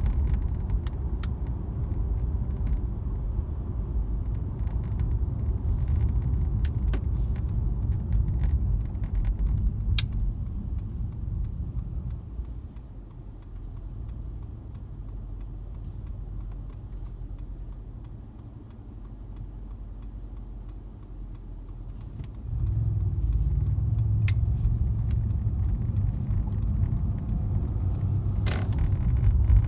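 Cabin noise of a Mercedes-AMG C63 S (W205) on the move: a low road and drivetrain rumble with scattered light clicks and rattles from the dashboard display screen, a rattle the owner complains of. The rumble drops for about ten seconds midway, then comes back up.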